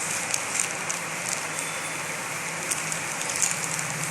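Steady hiss and low hum with scattered light clicks and crackles from handling small plastic component packets.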